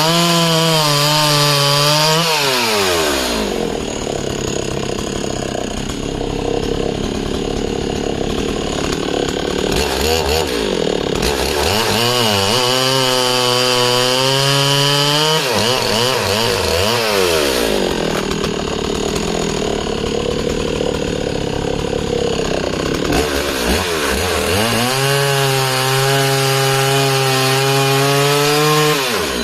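Husqvarna 61 two-stroke chainsaw with a full-chisel chain cutting discs off a log at full throttle, its pitch wavering under load. It falls back to a lower idle between cuts, three times: near the start, in the middle and near the end.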